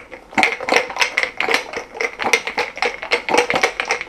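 A drink being shaken hard in a lidded clear plastic cup, its contents rattling against the plastic in quick, uneven strokes.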